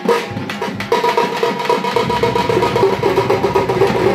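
A Tamil thappu (parai) drum troupe playing together: flat frame drums and strapped side drums struck with sticks in a fast, dense rhythm, the drumheads ringing. Deeper low beats come in about two seconds in.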